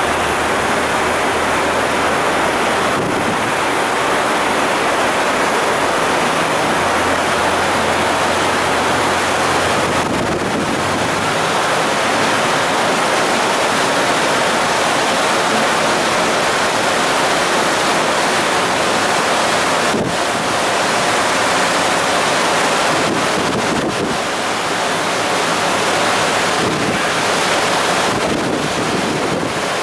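Steady rush of churned seawater alongside a departing ship, mixed with wind buffeting the microphone. A faint low hum runs underneath.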